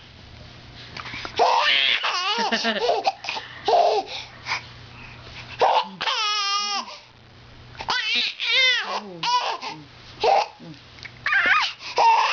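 Baby laughing in repeated short bursts and high-pitched squeals while she has the hiccups, with a long wavering squeal about halfway through.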